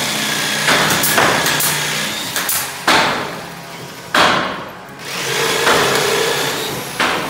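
Wood-shop noise: a handheld power tool running on wood, with several loud knocks like hammer blows on the wooden frames.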